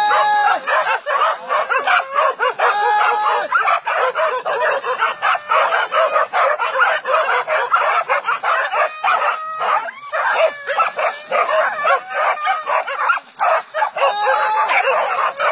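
A pack of hunting dogs barking and yelping over one another without a break, at a downed wild boar.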